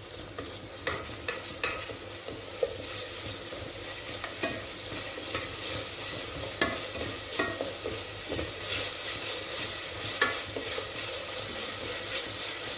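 Chopped onions and garlic paste sizzling in hot oil in an enamel pot while a spoon stirs them, scraping and clicking against the pot every second or so.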